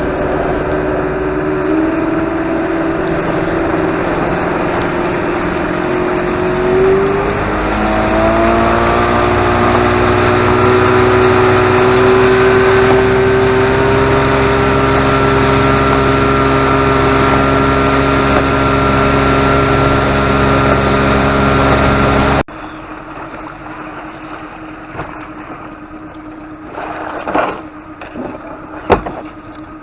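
Boat motor running under way. Its pitch rises about a quarter of the way in as it speeds up, then holds steady. It cuts off suddenly about two-thirds of the way through, leaving quieter noise and a few knocks near the end.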